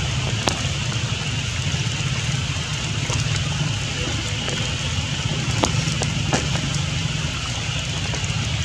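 Steady rain hiss with scattered sharp ticks of drops.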